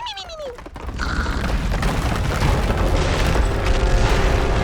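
Cartoon sound effect: a short falling tone, then from about a second in a long, loud low rumble like a boom or explosion that builds and holds.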